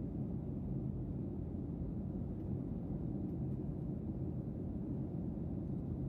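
Steady low rumble of a jet airliner in flight, heard inside the cabin: engine and airflow noise with a faint low hum.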